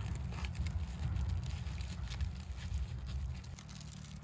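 Foil and plastic food wrappers crinkling and rustling as they are handled and opened, over a steady low rumble.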